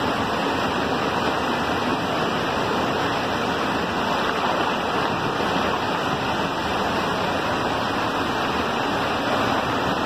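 Waterfall, its falling water making a steady, unbroken rush.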